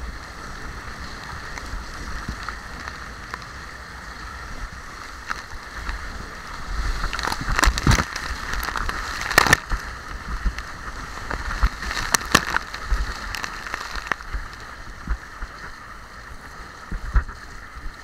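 Water rushing down a water slide as a rider slides through it, a steady splashing rush. A few sharp knocks and bumps come about eight, nine and a half and twelve seconds in.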